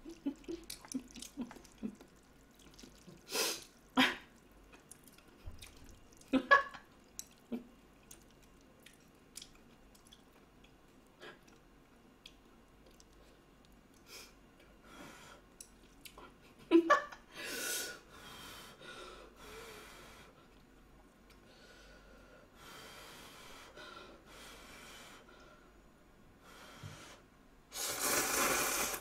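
A person eating instant ramyeon noodles: chopsticks clicking against the pan and bowl, then wet slurping and chewing, with a long, loud slurp near the end.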